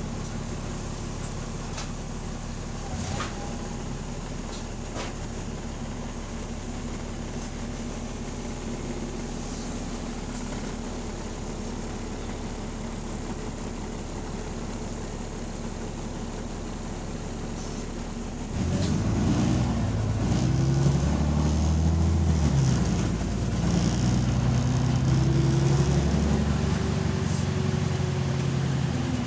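Bus engine idling with a steady drone, then, about two-thirds of the way through, it gets louder and rises in pitch twice as the bus pulls away and accelerates. The bus has an exhaust leak.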